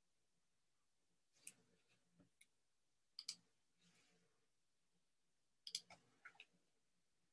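Faint clicks and rustles of someone shifting and handling things at a desk, in three short clusters: about a second and a half in, about three seconds in, and a busier cluster near six seconds, while the room is otherwise near silent.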